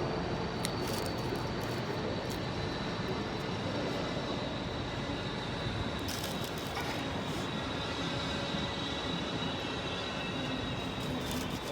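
Railway station platform ambience: a steady rumble of trains with a thin high whine running through it, and a few light clicks close by.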